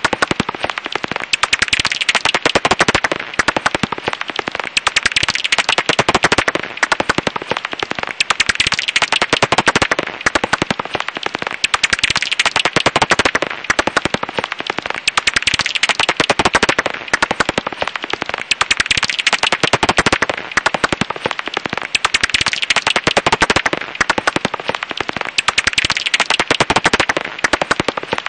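Japanese house bat (Pipistrellus abramus) echolocation calls made audible, heard as a dense, rapid crackle of clicks that swells and fades every two to three seconds.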